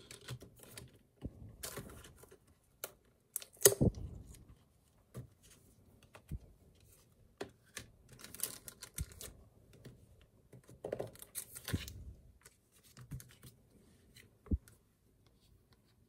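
Plastic packaging being handled: irregular crinkling and rustling of plastic sleeves, broken by clicks and light taps of the items against a wooden table. A sharp click about four seconds in is the loudest.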